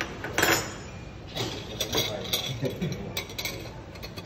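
Tableware being handled at a meal table: a series of short clicks and knocks of spoons, ladles and dishes, the loudest about half a second in.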